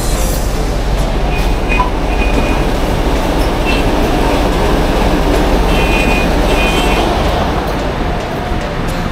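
Steady rumble and running noise of a city bus standing at a stop with its door open. Several short, high electronic beeps come from the fare card reader as a card is tapped, the clearest a double beep about six seconds in.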